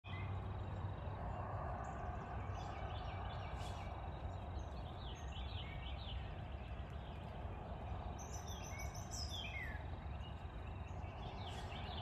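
Several small songbirds chirping and singing in short falling notes, with a quick run of high notes about eight seconds in, over a steady low background noise.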